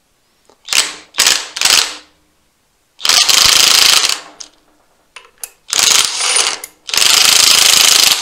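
Impact wrench hammering on the rotor nut of a Triumph Trident T160's crankshaft, trying to undo it against the locked engine: three short bursts, then three longer bursts of about a second each.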